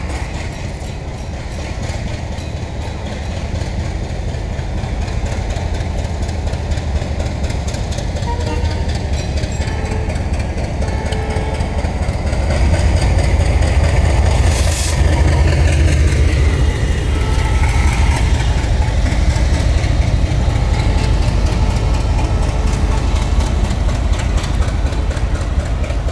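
Diesel locomotive engine running with a deep, steady rumble as it hauls a passenger train slowly past. The rumble grows louder as the engine nears and is loudest from about halfway on, with a short hiss in the middle.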